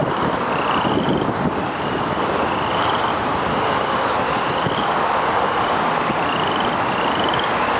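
Strong, gusty storm inflow wind rushing over the microphone, mixed with road traffic. A short high rising chirp repeats every second or so.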